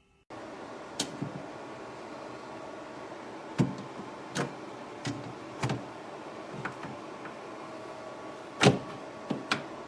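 A small fridge being handled: a series of sharp knocks and clicks, the loudest near the end, over a steady hum.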